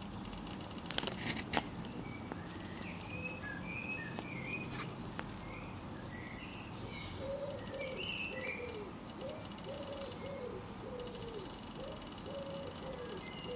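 Birds calling: short high chirps through the first half, then a run of lower, falling notes repeated about twice a second toward the end, with a couple of faint clicks about a second in.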